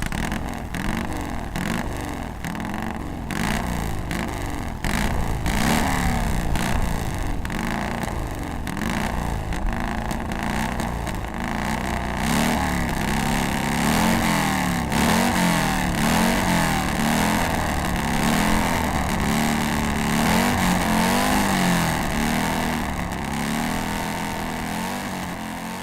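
1949 Vincent Black Lightning's 998cc V-twin engine being revved again and again, its pitch rising and falling about once a second.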